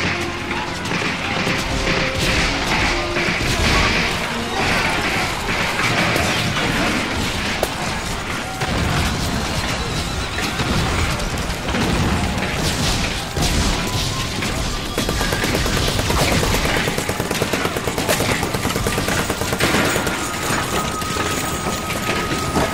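Battle sound effects: rapid rifle volleys and cannon booms, many shots overlapping without pause, over background music.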